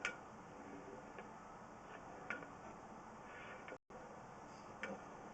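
A few short, sharp clicks at uneven intervals over a steady faint hiss.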